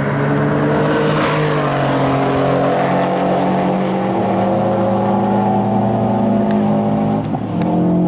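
Race car engine running hard and steadily, its note dipping slightly about a second and a half in, then changing pitch abruptly about seven seconds in, as at a gear change.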